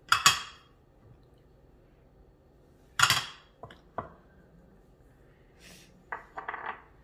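Small ceramic and glass bowls clinking against each other and against a ceramic cup as ground spices are tipped in and the emptied bowls are stacked. There are a handful of sharp clinks: the loudest just after the start and about three seconds in, two lighter taps soon after, and a quick cluster near the end.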